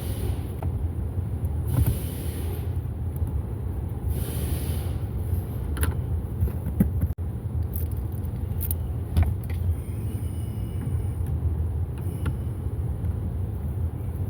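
A steady low vehicle rumble, with a few light clicks and taps as screws are fitted back into the glove box trim.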